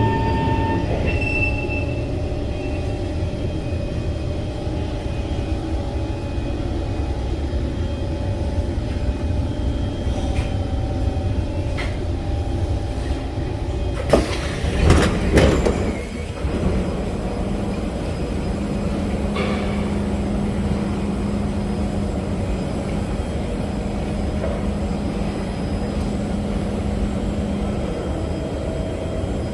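SMRT C151 metro train running between stations, heard from inside the car: a steady rumble of wheels and running gear, with a brief louder burst of clatter about halfway through and a steady hum in the second half.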